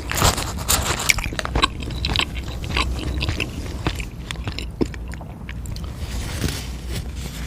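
Close-miked biting and chewing of spicy food, with irregular sharp crunchy clicks, thickest in the first few seconds and thinning out later.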